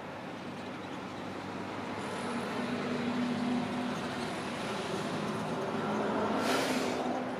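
Engine running with a steady low hum that grows louder, and a short hiss about six and a half seconds in.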